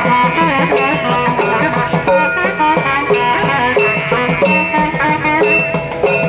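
Traditional South Indian temple instrumental music: a melody line with gliding, ornamented notes over quick, steady drum strokes, played for the udike round dance.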